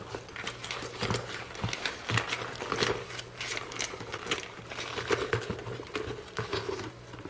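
Hands handling a paper mini album: pages rustling and tapping against the round container as they are slipped back in one at a time, a stream of irregular small clicks and rustles.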